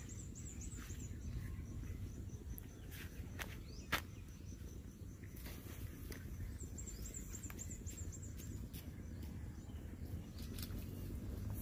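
Rural field ambience: a steady low rumble of wind on the microphone, with a thin high-pitched chirping that comes in two quick runs, near the start and after about six seconds, and a single sharp click about four seconds in.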